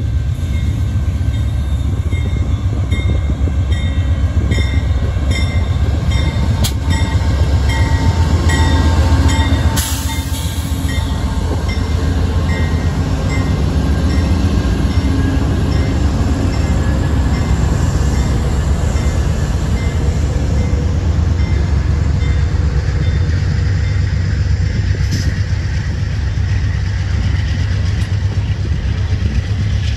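Amtrak GE P42DC diesel locomotives under throttle pulling a passenger train away from a station, a deep steady engine rumble as they pass close by, followed by bilevel Superliner passenger cars rolling past with wheel-on-rail noise. A bell rings about twice a second through roughly the first ten seconds.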